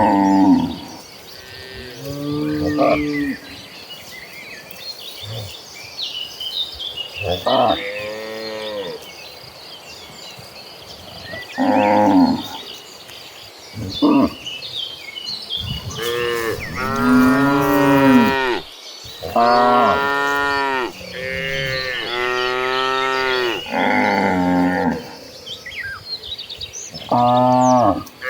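A herd of cattle mooing, one animal after another, in repeated calls of a second or so each. Several calls crowd together in the second half.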